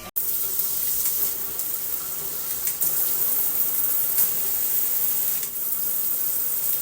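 Water spraying steadily from a shower head, an even hiss that starts abruptly.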